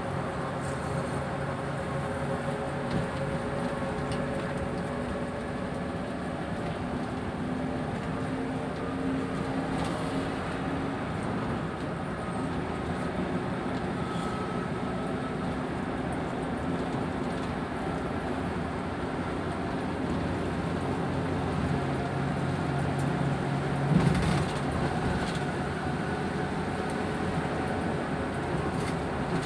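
Steady engine drone and road noise heard from inside an intercity bus cruising on a highway, with one short thump late on.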